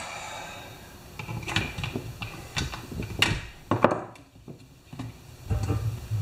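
Scattered clicks, taps and knocks of a plastic chainsaw and hand tools being handled and set down on a wooden workbench.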